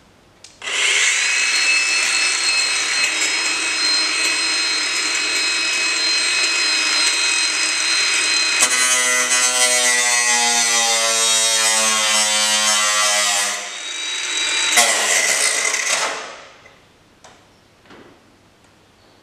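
Cordless angle grinder spinning up to a steady high whine, then cutting into a car's sheet-metal rear panel about halfway through, its pitch sagging under load. It stops, runs again for about a second and stops for good, as its battery runs flat.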